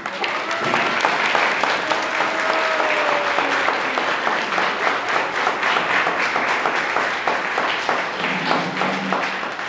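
A small crowd applauding: dense, steady clapping that eases slightly near the end.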